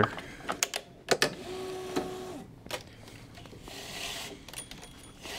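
Clicks and clacks from a tennis stringing machine's clamp being handled, a brief motor whir about a second and a half in, then the soft hiss of the synthetic string being drawn and woven through the string bed.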